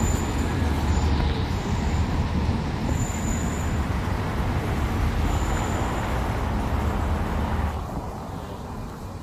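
City road traffic: a steady low rumble of passing vehicles, with a thin high whine coming and going several times. The noise eases near the end.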